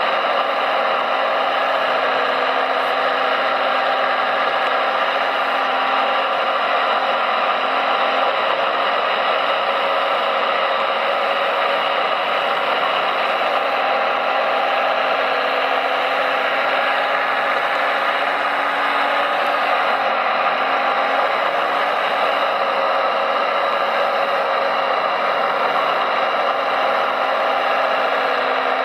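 Radio-controlled model construction machines running, a steady mechanical whine of small electric motors and gearing with several fixed tones and no deep rumble.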